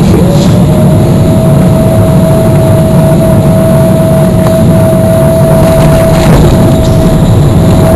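Cabin noise of a Boeing 777-300ER in its final seconds of landing, heard from a window seat: a loud, steady rush of airflow and GE90 engine noise, with a thin steady whine from about half a second in.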